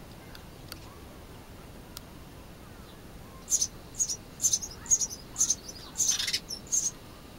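Nestling birds in a nest up under the hut's roof cheeping: quiet at first, then from about halfway through a run of short, high cheeps about twice a second, the loudest a longer burst near the end.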